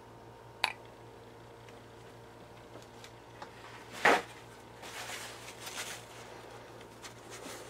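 Workbench handling: a small click, then about three seconds later a louder hard knock as the plastic cup of lamp oil and its dropper are set down. This is followed by a paper towel rubbing over the brass fuel base of a toy steam engine.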